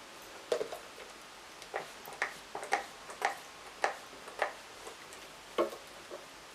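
Trigger of a hand-held plastic spray bottle being squeezed over and over, about eight short sharp clicks, roughly two a second at the busiest.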